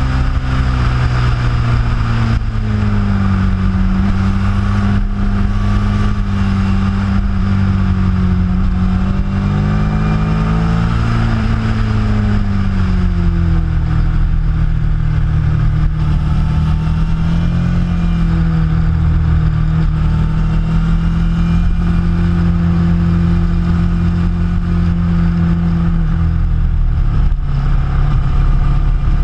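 Motorcycle engine heard from the bike itself while riding, its pitch rising and falling with the throttle through the bends, over a steady rush of wind.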